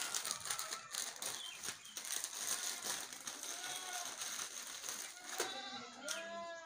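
Crinkling of a thin plastic packet as rusks are pulled out of it, with a goat bleating in a wavering call near the end.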